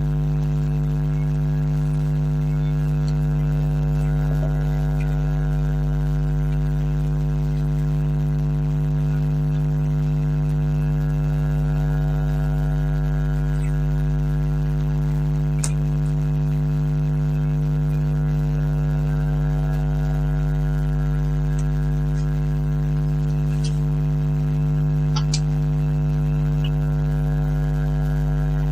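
Steady electrical mains hum, a low buzz with an unchanging pitch, with a few faint clicks from wires being handled.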